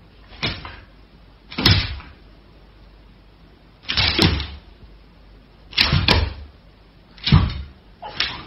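Husky giving short, harsh snarls and snapping jaws at another dog, about six bursts a second or so apart, some starting with a sharp click.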